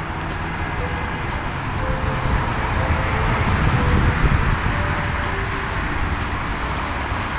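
City street ambience dominated by a low traffic rumble, which swells about four seconds in and then eases off.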